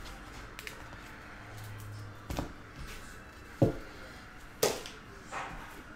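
Handling of trading cards on a table mat: three short, sharp taps a second or so apart, the last two the loudest, over a quiet room background.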